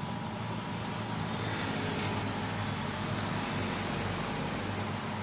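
A motor vehicle's engine running steadily, growing louder a little over a second in and easing off near the end.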